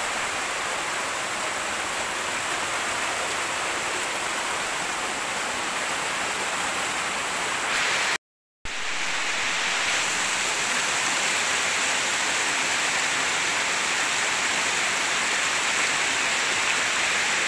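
Shallow stream running over rocks, a steady rush of water that cuts out for about half a second a little before halfway through.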